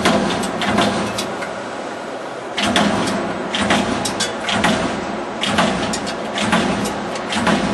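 CNC turret punch press punching sheet steel: sharp metallic strikes in quick runs of several hits, with short pauses between runs while the sheet is repositioned, over a steady machine hum.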